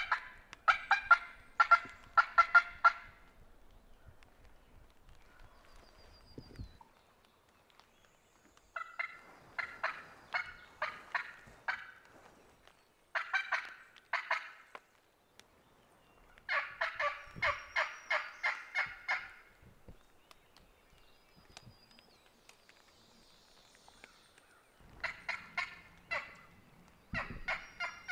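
Wild turkey calling: runs of loud, evenly spaced yelps, each run one to three seconds long, coming again and again with pauses of a few seconds between.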